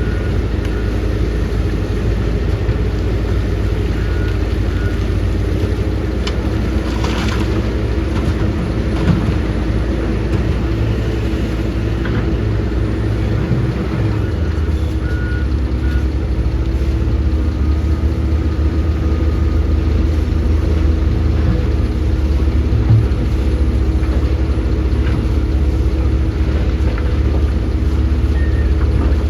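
Heavy diesel engine of a working hydraulic excavator running steadily under load, its low note getting stronger and slightly louder about halfway through. A brief hiss comes about seven seconds in, and there are short beeps near the start.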